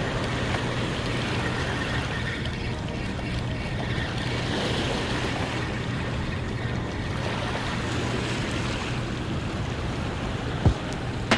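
Steady rush of water pouring through the dam's open floodgates, with a low steady hum underneath and a sharp click near the end.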